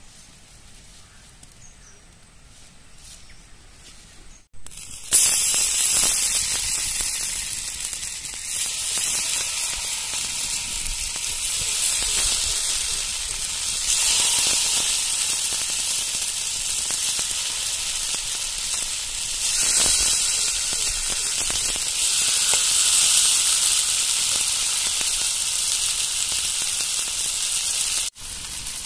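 Masala-coated whole fish frying in oil on a hot tawa: a loud, steady sizzling hiss that starts suddenly about five seconds in and breaks off just before the end.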